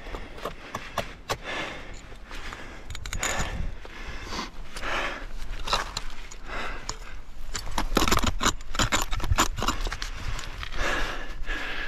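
Steel ice-tool picks scraping, clicking and knocking on granite as they are hooked and placed in dry-tooling, with many short sharp strikes and the clink of carabiners and climbing gear.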